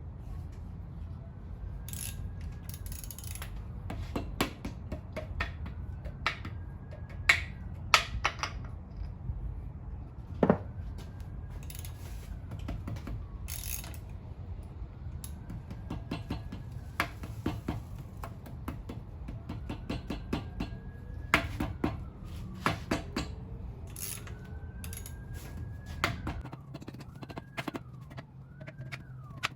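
Scattered clicks and clanks of metal engine parts being handled over a steady low hum, which cuts off near the end. A faint siren wails in the background, rising and falling, more often toward the end.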